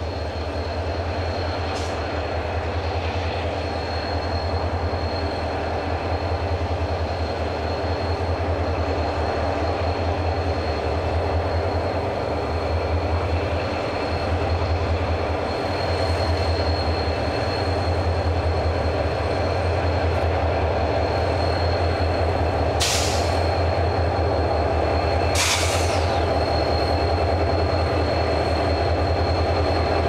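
Diesel locomotives hauling a ballast train at low speed, with a steady low engine rumble and the noise of the passing train. Two short hissing sounds come near the end.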